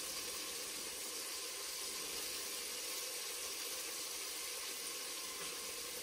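Flour-dredged squirrel pieces frying in hot oil, a steady, even sizzle.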